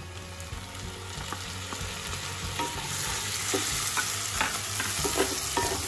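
Onions and chopped tomatoes sizzling in butter in a nonstick kadhai while a spatula stirs them, scraping and tapping against the pan. The sizzle grows louder about halfway through.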